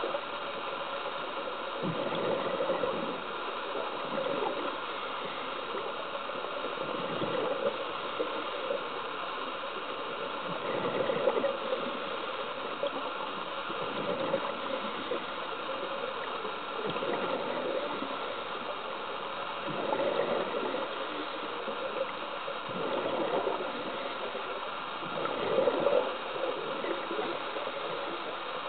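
Scuba diver's regulator breathing heard underwater: a steady muffled hiss with a bubbly rush of exhaled air about every three seconds.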